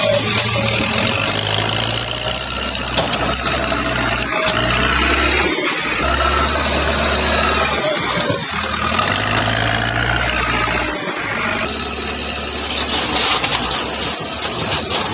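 Caterpillar 424B backhoe loader's diesel engine running close up under load as its front bucket pushes into soil; the low engine hum drops out briefly a few times.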